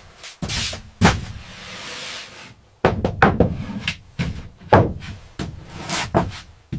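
A run of irregular knocks and bangs from building work, about a dozen sharp hits at uneven spacing, some trailing off in a short rattle.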